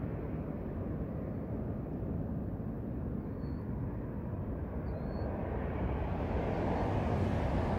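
Outdoor rumble of road traffic, with a vehicle approaching on the road and growing louder over the last couple of seconds.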